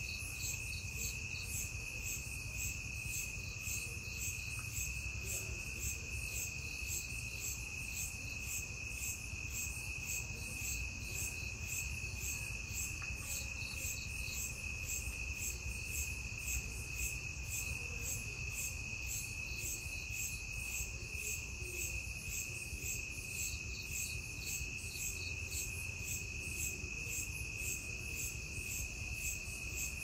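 Crickets chirping in a steady chorus: one continuous high trill with a faster, evenly pulsing chirp above it, over a low rumble underneath.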